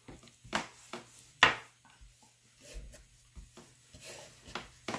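A hand rubbing a dry spice rub into a raw pork loin on a plastic cutting board: a string of short, irregular rubbing strokes and pats, with one sharper slap about one and a half seconds in.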